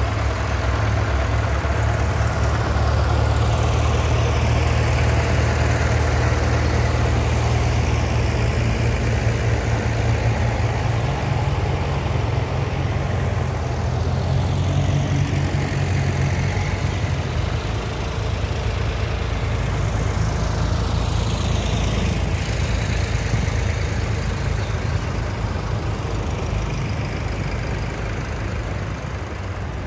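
Vintage tractors, among them a blue Fordson Major, a grey Ferguson and a red Massey Ferguson, driving past one after another with their engines running in a steady low note. The pitch sweeps as each machine goes by.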